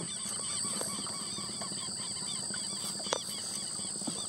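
A chorus of many small animal calls repeating without pause over a steady high drone, with one sharp knock about three seconds in.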